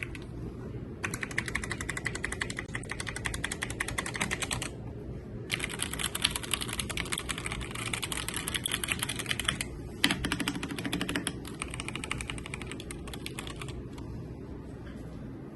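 Redragon Brahma K586 mechanical keyboard with red switches being typed on fast, in three runs of rapid keystrokes with short pauses between them.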